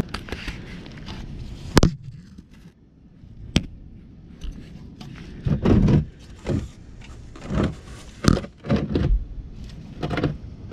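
Handling noise under a car: a few sharp clicks and knocks with short bumps and rustles as hands and gear are moved about, a hand reaching up to the oil filter near the end.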